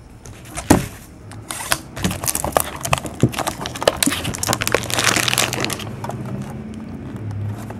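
Cellophane shrink-wrap crinkling and tearing as it is stripped off a sealed box of trading cards, busiest in the middle and quieter near the end. A single sharp knock comes about a second in.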